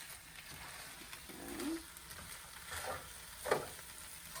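Vegetable fried rice sizzling in a hot pan while it is stirred and tossed, with a few short scrapes and knocks of the utensil against the pan, the loudest about three and a half seconds in.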